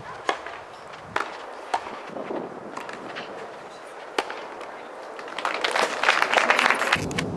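Tennis ball struck by rackets several times with sharp pops during a doubles rally, then the crowd applauding for about two seconds near the end once the point is won.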